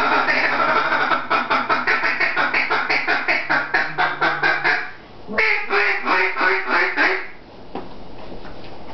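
A Timber Rattler duck call blown in a feed chatter: a fast run of clucking quacks, about seven a second. It breaks off briefly about five seconds in, then picks up for another couple of seconds before fading.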